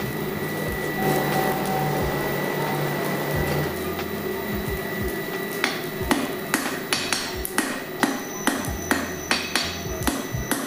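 Blacksmith's hammer striking a white-hot wrought chain link on the anvil, forge welding the scarfed ends together: sharp ringing blows about two to three a second, starting about halfway through. Before the hammering there is a steady rush from the coal forge.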